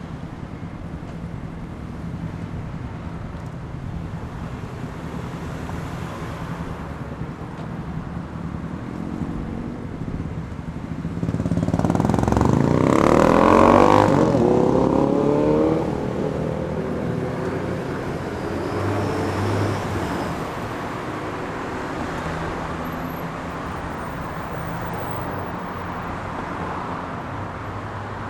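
Traffic at a busy city intersection: a steady rumble of engines and tyres. About halfway through, one vehicle accelerates close by, its engine pitch rising as it gets louder for a few seconds, then dies away back into the traffic.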